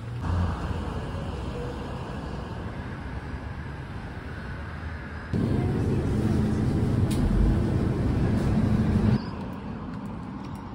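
Street ambience with road traffic, a steady noise that gets louder for a few seconds in the middle as a low rumble with a faint hum, starting and stopping abruptly.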